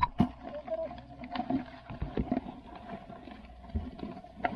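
Irregular light clicks and scratches of live crabs and eels moving against the sides of a plastic bucket, with one sharper knock just after the start.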